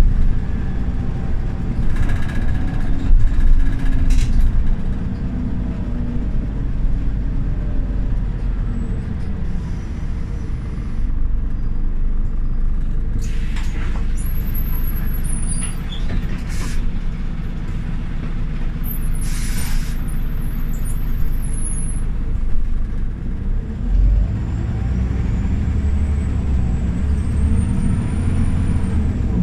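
Scania OmniLink city bus running, its engine droning steadily. A hiss of compressed air lasts about two seconds a little past the middle, typical of the air brakes. In the last few seconds the engine pulls harder, with a faint rising whine.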